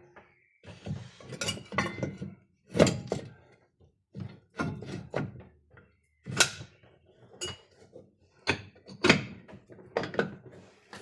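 A series of sharp knocks and clatters of hard objects being handled, in several short groups with brief silences between them.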